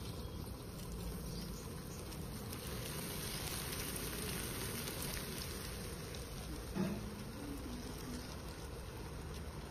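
Banana pakoras deep-frying in a kadhai of hot oil, a steady sizzle as batter pieces are dropped in. A single knock about seven seconds in.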